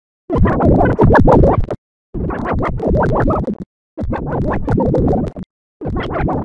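A cat-character song, heavily distorted by vocoder and bitcrusher effects into a harsh, noisy, scratchy blare. It is chopped into four bursts of about a second and a half each, with short silences between them.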